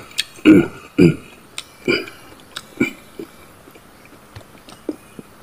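A man eating and chewing, with four short wordless voiced mouth sounds in the first three seconds, growing weaker, then only faint chewing clicks.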